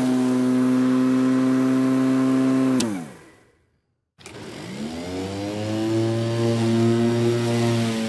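Petrol lawnmower engine running steadily, then winding down in a falling pitch and stopping about three seconds in. After a moment of silence a mower engine comes in again, its pitch rising as it revs up to a steady run.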